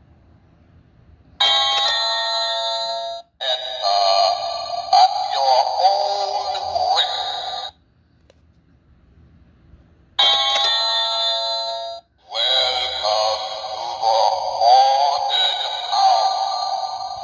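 Toy pumpkin doorbell's electronic chime, followed each time by a recorded voice sound effect, all from a small tinny speaker. It plays twice: the chime about a second in and again about ten seconds in, each followed by several seconds of wavering voice.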